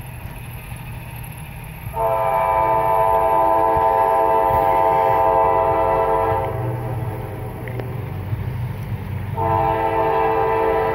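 Diesel locomotive horn of an approaching freight train sounding two long blasts, the first about four seconds long and the second starting near the end, with a low engine rumble heard between them.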